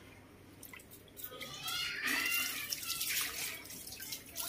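Baby monkey splashing in a plastic basin of water, with splashes and drips, growing louder about two seconds in.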